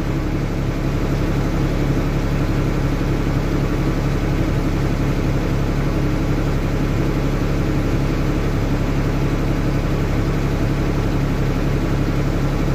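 A steady, low mechanical hum from a running machine, unchanging throughout.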